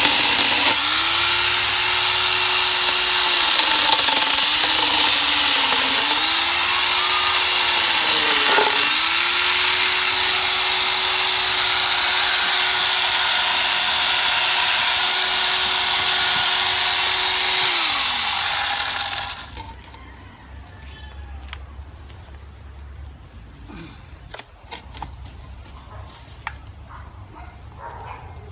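Angle grinder driving a chainsaw attachment, running at high speed and cutting semi-hardwood; its pitch sags several times as the chain bites and then recovers. About eighteen seconds in it is switched off and winds down, leaving a much quieter background with faint ticks.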